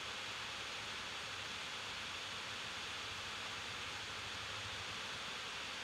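Steady, even hiss of room tone and microphone noise, with nothing else sounding.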